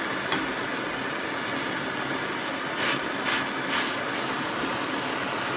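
Small gas torch burning steadily with an even hiss, its flame heating an aluminium tube. A few short clicks come through, one near the start and three a little past halfway.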